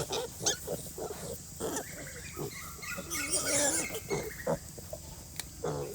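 Sow and piglets grunting in short, repeated grunts, with a longer, wavering, higher call about three seconds in.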